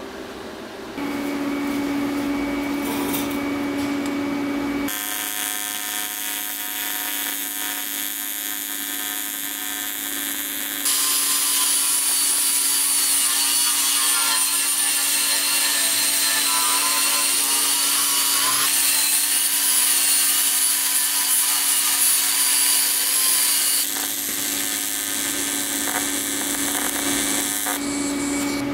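TIG welding small aluminum brackets: a steady electric buzz from the arc, heard across several short cut-together clips and loudest through the middle.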